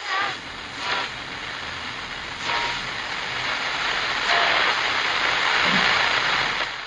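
Television-static sound effect: a steady hiss of white noise with a few short glitchy chirps. It grows louder about four seconds in and fades out at the end.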